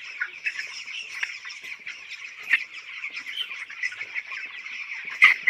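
A flock of 17-day-old Venky broiler chicks cheeping continuously, a dense chatter of high peeps. A couple of louder peeps stand out, one about two and a half seconds in and one near the end.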